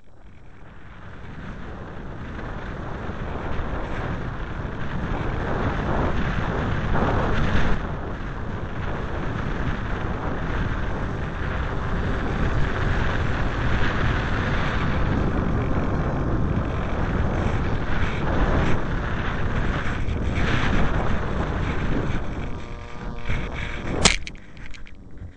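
Air rushing over a camera mounted on a discus-launch glider in flight, a steady wind noise that builds over the first few seconds. Near the end it drops away, and a sharp knock comes about a second before the end.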